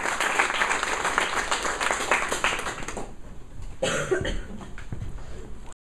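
Audience clapping in a small room for about three seconds, then dying away, with a short burst from a person's voice, such as a cough, about four seconds in.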